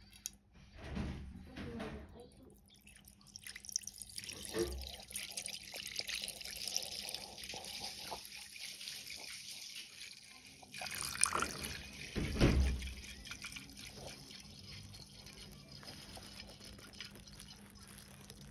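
Kerosene poured in a steady stream from a plastic bottle into a glass dish, splashing and trickling. The pour is loudest through the middle and fades near the end, with a few low thumps of handling.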